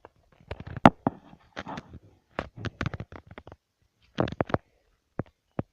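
Sticky slime being squished and worked by hand: a run of sharp clicks and small pops, with a short lull before a last cluster and a few single clicks.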